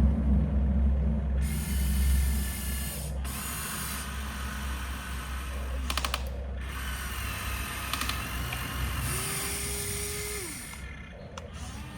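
Small electric motors and plastic gearboxes of a Huina RC construction model whining in several separate runs, starting and stopping every few seconds, with a brief steady tone near the end.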